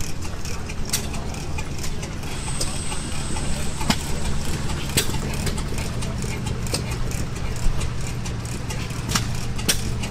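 Antique stationary gas engines running: a steady low engine drone with irregular sharp pops and clicks from hit-and-miss flywheel engines firing.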